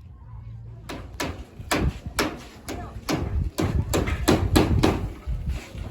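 Repeated hard knocks or blows, about three a second and somewhat irregular, starting about a second in over a low steady hum.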